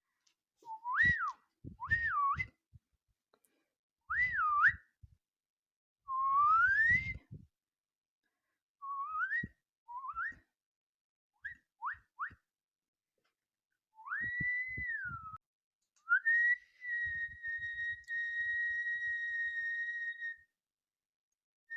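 A young girl whistling by mouth: a string of short separate notes that swoop up and down in pitch, mostly quick rising slides, followed near the end by one long steady held note, with a little breath noise under the notes.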